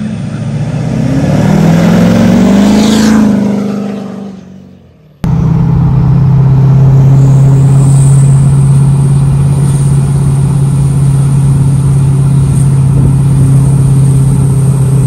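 A Duramax diesel pickup with a big 64 mm turbo drives past, its engine note rising and then fading away. After a sudden cut, the diesel runs with a steady drone and a thin high turbo whistle, heard from inside the cab while driving.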